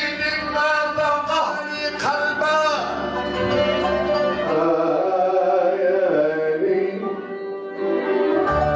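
Traditional Arab-Maghrebi music: singing with an oud and string ensemble. It quietens briefly about seven seconds in before picking up again.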